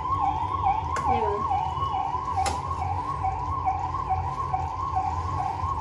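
A siren-like warbling tone rises and falls back over and over, about three times a second, over a steady low hum. A metal ladle clinks against the pan twice.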